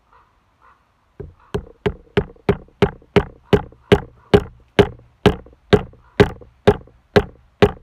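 A wooden baton knocking repeatedly on the spine of a knife, driving the blade into a wooden spear shaft to cut a groove. It is a steady run of sharp knocks at about three a second, starting about a second in and slowing slightly towards the end.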